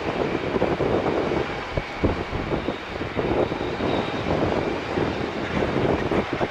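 General Electric GE90 jet engines of a Boeing 777-300ER as it rolls down the runway: a continuous rushing engine noise that wavers slightly in level.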